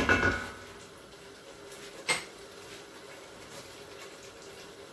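Stainless steel cookware clanking as a wooden spoon stirs stew in a pot on a gas hob: a ringing clank at the start and a single sharp click about two seconds in, over a faint steady hum.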